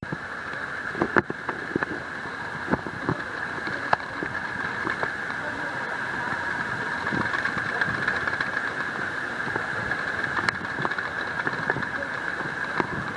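Steady rain during a thunderstorm, an even rushing hiss with scattered sharp ticks of drops striking nearby surfaces.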